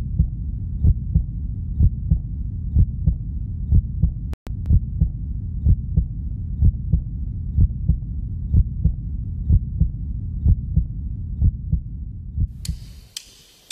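Heartbeat sound effect: low double thumps about once a second over a steady low hum, cut off briefly about four seconds in and fading away near the end.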